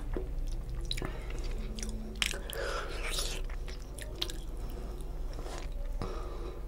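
Close-miked chewing of a mouthful of rice and tilapia curry eaten by hand: wet, uneven mouth sounds broken by several sharp clicks.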